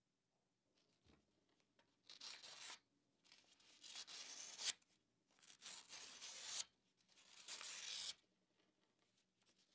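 Freshly sharpened steel wood chisel slicing through a sheet of paper in four separate cutting strokes, each a short papery hiss about a second long.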